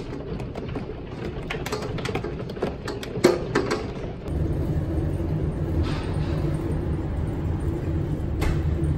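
Hail hitting a window in irregular sharp clicks. About four seconds in, the sound switches suddenly to the steady low rumble of a train passing a station, which cuts off at the end.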